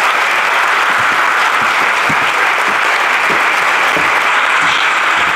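Audience applauding steadily, a dense, even round of clapping.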